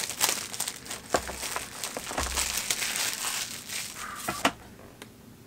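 Clear plastic shrink-wrap crinkling and crackling as it is pulled off a cardboard booster box and crumpled by hand, with many sharp crackles. It stops about four and a half seconds in.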